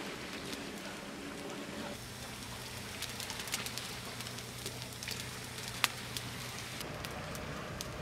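Fire of dry cane stalks and wood sticks crackling, with scattered small pops and one sharp loud pop about six seconds in.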